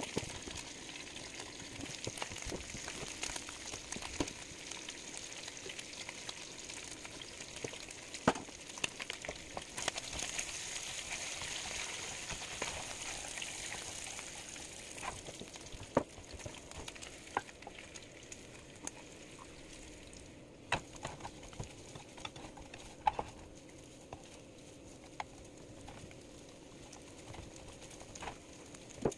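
Bacon sizzling in a nonstick frying pan, with scattered sharp pops and clicks as the strips are turned with a plastic spatula. The sizzle is loudest in the middle and eases off near the end.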